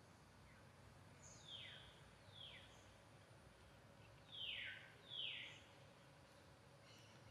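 Faint background with a bird giving four short calls that slide downward in pitch, in two pairs about two seconds apart; the second pair is the louder.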